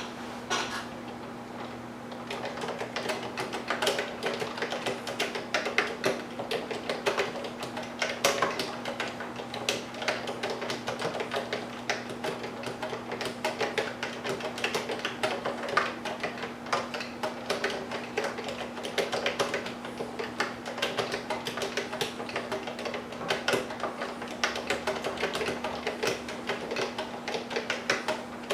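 Epson QX-10 keyboard being typed on: a fast, irregular run of clacking keystrokes that starts about two seconds in and keeps going, over a steady low hum.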